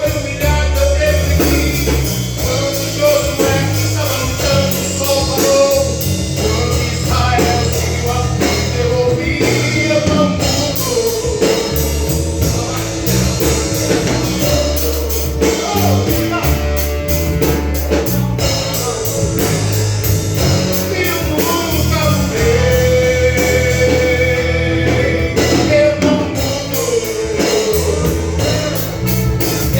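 A gospel band playing a song, with a lead singing voice over a steady band beat and bass.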